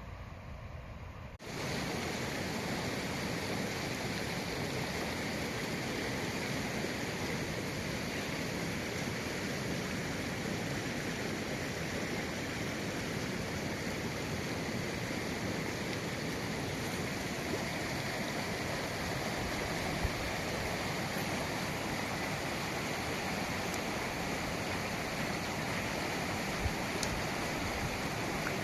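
Mountain stream or river rushing steadily, cutting in suddenly about a second and a half in.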